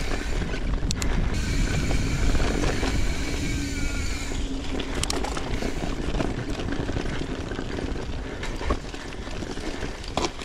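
YT Izzo mountain bike being ridden hard along a dirt trail: a steady low rushing and rumbling of tyres and movement, with a few sharp clacks from the bike about a second in, around five seconds in and near the end.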